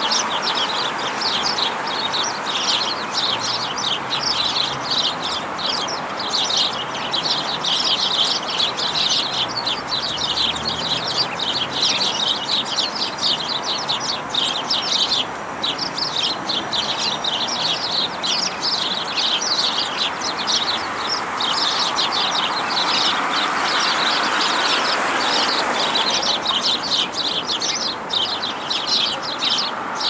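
A flock of house sparrows chirping nonstop, many short chirps overlapping at once, over a steady background rush.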